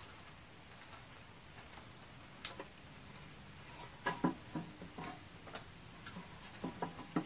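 Scattered light clicks and taps, sharpest about two and a half and four seconds in, of a Briggs & Stratton Quantum lawn mower's plastic recoil starter pulley being handled and seated in its metal starter housing.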